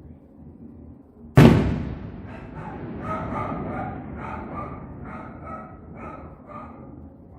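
A single loud firework bang about a second and a half in, followed by dogs barking over and over, the sound that fireworks set off in the neighbourhood.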